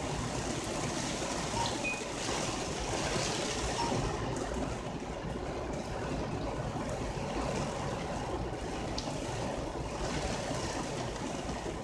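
Heavy storm rain falling steadily on a parked minivan, heard from inside as an even hiss.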